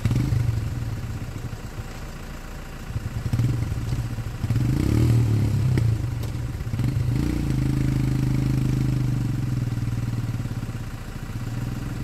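Single-cylinder motorcycle engine running on a dirt track, its pitch rising and falling several times as the throttle is opened and eased off.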